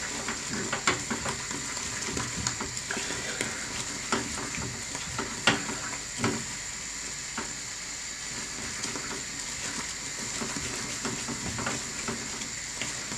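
A spatula stirs a thick maple syrup and peanut butter mixture boiling down in a non-stick saucepan. There is a steady sizzle as the last of the liquid cooks off, with occasional scrapes and taps against the pan, the sharpest about halfway through.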